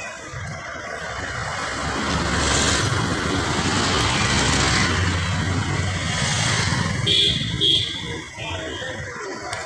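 Road traffic noise heard from a moving vehicle: a steady engine rumble and road hiss that swells louder through the middle. Two short high-pitched sounds come about seven seconds in.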